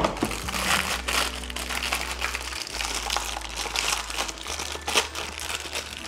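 Clear plastic packaging bag crinkling and crackling as hands handle and unwrap a vacuum-cleaner accessory, with a few louder crackles along the way.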